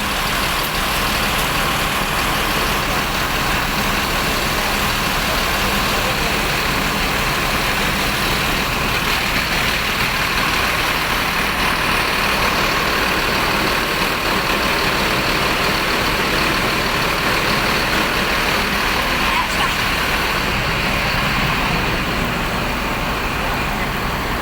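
A bus engine running steadily, a loud unbroken noise with no change in pitch.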